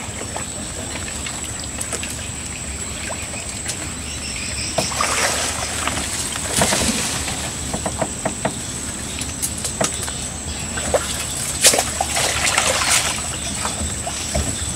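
Water sloshing and splashing around a small boat as a fishing-rod pole is pushed into the muddy canal bank, with scattered knocks and rustles in the leaves. Splashes come in two busier spells, in the middle and toward the end.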